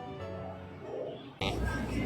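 Background music with sustained notes, cut off suddenly about one and a half seconds in by a noisy live soundtrack with a low rumble.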